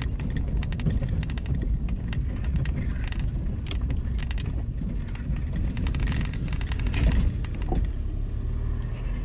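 A road vehicle running, a steady low rumble with frequent rattling clicks over it.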